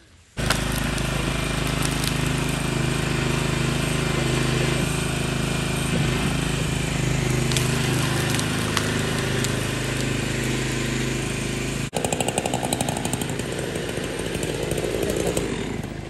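Riding lawn mower's small petrol engine running steadily at constant speed. It briefly drops out about twelve seconds in and comes back with a rattle.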